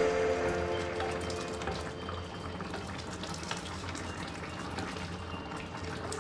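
A coconut-milk vegetable and chicken stew simmering in a wok while a wooden spatula stirs through it, giving a wet, bubbling noise with faint scrapes. The tail of background music fades out in the first second.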